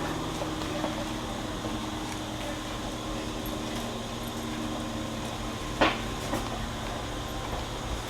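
A train's steady mechanical hum with a few low droning tones. A sharp knock comes nearly six seconds in, and a fainter one follows just after.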